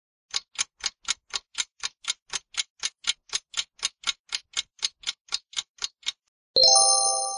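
Quiz countdown timer sound effect: a clock ticking evenly, about four ticks a second, for some six seconds. Near the end it stops and a loud bright chime of several ringing tones sounds as the answer time runs out, then fades.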